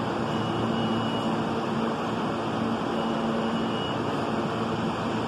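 Steady rumble of a subway train approaching through the tunnel, with a low hum and a faint high whine that comes and goes.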